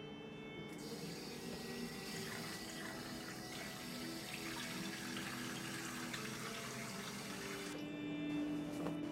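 Bathroom tap running into a sink while a man washes his face. The water starts about a second in and stops shortly before the end.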